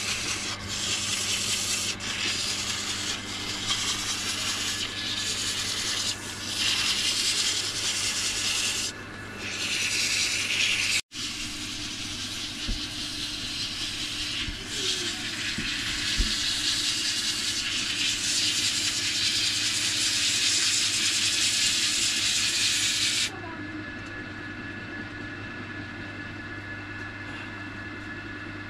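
Dar wood being shaved and smoothed: a loud, steady hissing scrape of tool or abrasive on the wood, with a few short breaks, that stops about 23 seconds in. A steady low hum runs underneath throughout.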